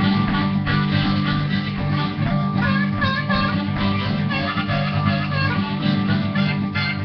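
Acoustic guitar strummed on a single G chord, with a C harmonica in a neck rack played over it in an improvised blues-folk jam.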